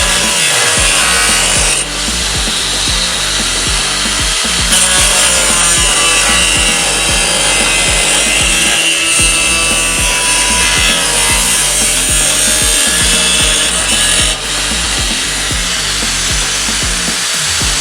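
Power grinding on the sheet metal of a steel Bronco fender, cleaning out rust holes for patching: a steady abrasive rasp that lets up briefly about two seconds in and again near fourteen seconds.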